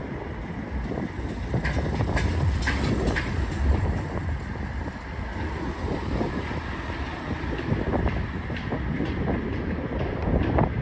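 Low rumble of passing traffic mixed with wind on the microphone, with a few sharp clicks about two to three seconds in.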